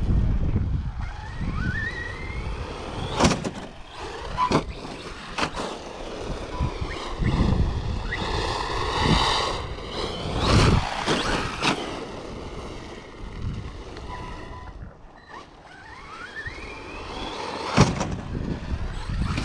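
Brushless electric motor of an Arrma Mojave 1/8-scale RC monster truck on a 5S battery, whining up and down in pitch as it accelerates and lets off. Several sharp thuds of the truck landing from jumps come in between, including a long rising-and-falling whine about halfway through.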